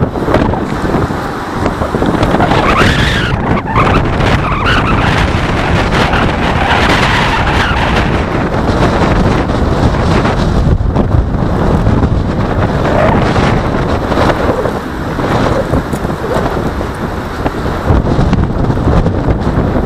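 Wind buffeting the microphone as a loud, uneven rumble, mixed with the rushing hiss of road traffic.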